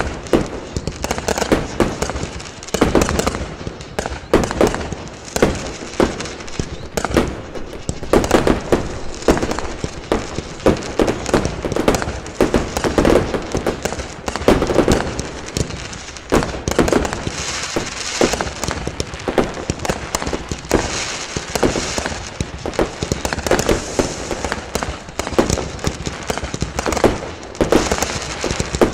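Fireworks going off: many bangs and crackles in quick succession, with a spell of denser high crackling about two-thirds of the way through.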